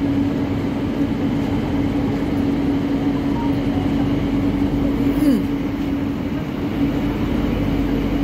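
Cabin noise of a moving LRT Jabodebek light-rail train on its elevated track: a steady running rumble with an even droning tone over it, and faint passenger voices in the car.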